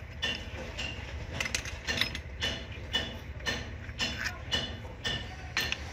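Ratchet wrench clicking in short strokes, about two a second, as it turns the nut on an Isuzu 4JA1 diesel's fuel pump drive gear. Each click rings with a thin metallic tone. A steady low hum runs underneath.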